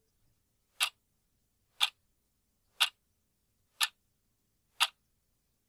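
Clock ticking: five sharp ticks, one a second, with silence between them.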